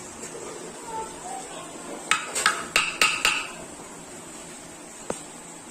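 A hammer tapping in a quick run of about six sharp strikes with a short ringing note, starting about two seconds in, then a single strike near the end.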